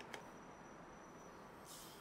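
Near silence: room tone, with one faint click just after the start and a short soft hiss near the end.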